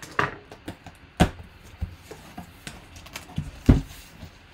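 Cardboard shipping box being handled and opened by hand: several separate knocks and taps of cardboard, the loudest near the end.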